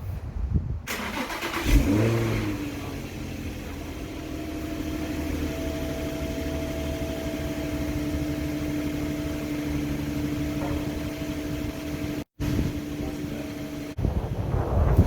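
Nissan 350Z's VQ35DE V6 with HKS hi-flow catalytic converters starting up about two seconds in with a brief rise in revs, then settling into a steady idle.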